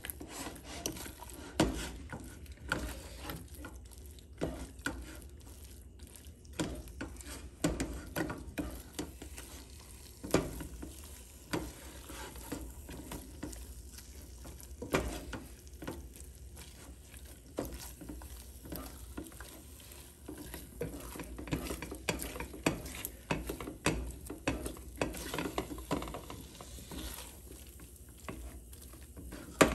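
Silicone spatula stirring and scraping thick, sticky halwa (a cooked cornflour, sugar and ghee mass) in a stainless steel pot, with a light sizzle of the hot ghee, and irregular knocks of the spatula against the pot, about one a second. The halwa is near the end of its cooking, gathered into one stretchy mass.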